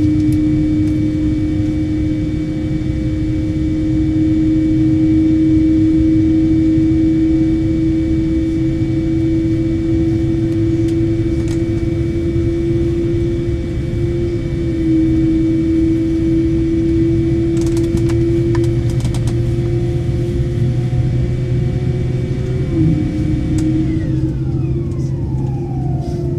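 A Boeing 787-9's GEnx engine starting, heard inside the cabin over a low rumble: a strong hum creeps slowly upward in pitch, with a fainter high whine above it. Near the end the hum drops a step and several tones slide steadily downward.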